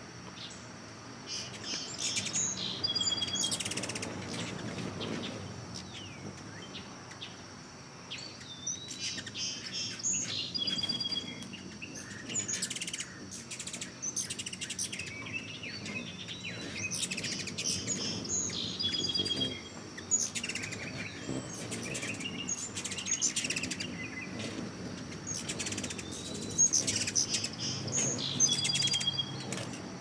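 Birds chirping and singing: clusters of high twittering calls, with a short trilled song phrase repeated every seven or eight seconds. A faint steady high whine runs beneath.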